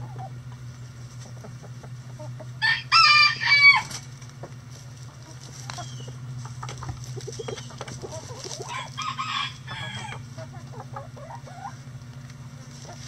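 Backyard chicken flock clucking, with one rooster crowing about three seconds in, the loudest sound, and a shorter call near nine seconds. A steady low hum runs underneath.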